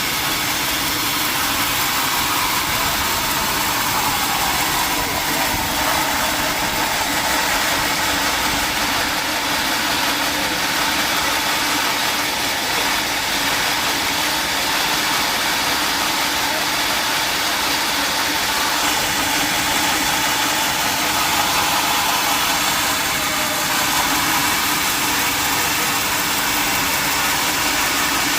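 Sawmill machinery running steadily: a loud, continuous hiss with a machine hum whose pitch sags slightly a few seconds in and picks up again about twenty seconds in.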